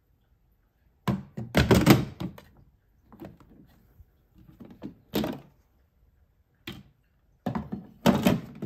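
Hard plastic ingredient containers of a Rotimatic Plus roti maker clunking and clattering as they are lifted out of and set back into their slots in the machine. There are several bursts of knocks, the loudest about two seconds in and near the end.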